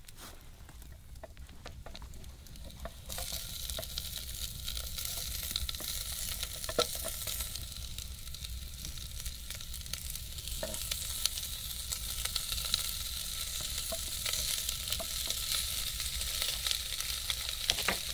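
Sliced sausage and onion sizzling in a cast-iron goulash kettle over a fire, frying for the goulash base. The sizzle swells up about three seconds in and then holds steady, with occasional light clicks.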